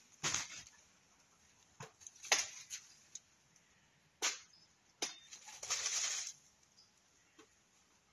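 Frost-killed banana leaves being cut and pulled down, making a few short, sharp crackling snaps and one longer rustle of dry leaves about six seconds in.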